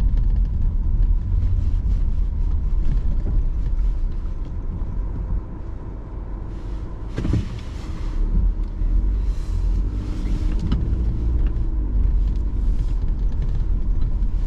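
Car driving on snowy roads, heard from inside the cabin: a steady low road and engine rumble. It eases off for a few seconds near the middle, and there is a single knock about seven seconds in.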